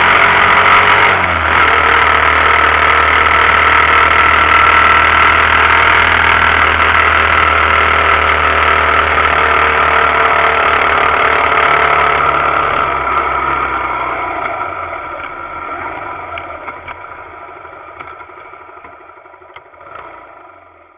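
Suzuki GZ125HS 125cc motorcycle running on the road, its engine and road noise heard muffled through an action camera's waterproof housing. The sound holds steady, then fades away over the last several seconds.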